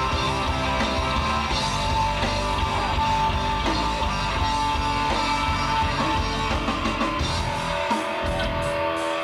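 Live rock band playing loudly: electric guitar holding long sustained notes over bass and drums. Near the end the bass and drums drop back, leaving mostly the guitar.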